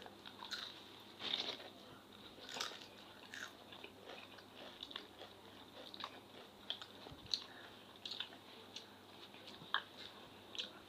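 Faint mouth sounds of eating spicy instant noodles off a fork: soft slurps and chewing, with scattered small clicks and brief smacks.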